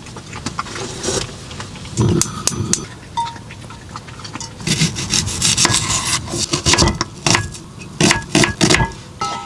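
Kitchen prep sounds: scattered clicks and knocks, then a busier stretch of clatter from about five seconds in, with utensils and a knife tapping on a wooden chopping board.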